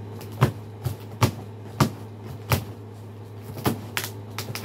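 A large cardboard shipping box being handled and opened: a series of irregular sharp knocks and clicks over a steady low hum.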